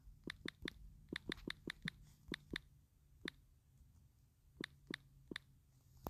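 Typing on a smartphone's touchscreen keyboard: faint, light taps in a quick run of about a dozen, then one more, and after a pause three more near the end.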